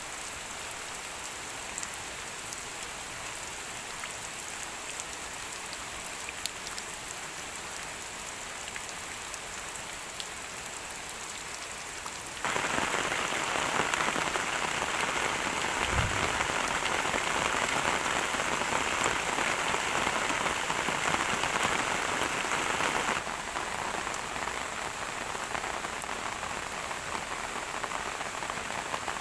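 Steady rain falling on a surface, a hiss of noise with scattered individual drop ticks. It turns abruptly heavier and fuller about halfway in, with a brief low thump, then drops back just as suddenly to the lighter rain.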